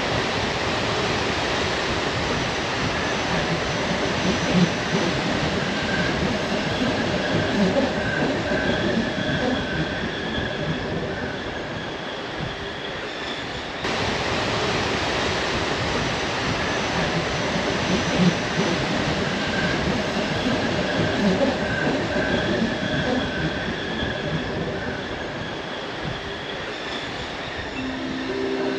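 Narrow-gauge Bernese Oberland Railway electric train running, heard from aboard: a steady rumble of wheels on rails, with thin high wheel squeal coming and going.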